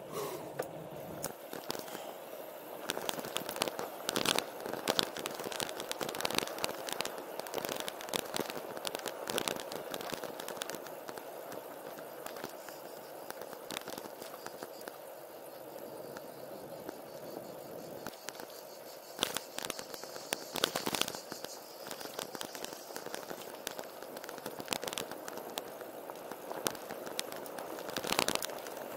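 Road bike rolling downhill on asphalt: steady tyre noise with frequent sharp clicks and rattles from the bike over bumps in the road.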